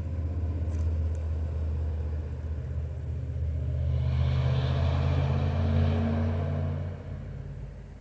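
Low engine rumble of a passing motor vehicle, building to its loudest about five to six seconds in and dropping away suddenly about seven seconds in.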